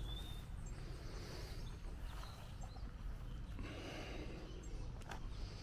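Rural outdoor ambience: a steady low rumble with scattered faint bird chirps, and a single click about five seconds in.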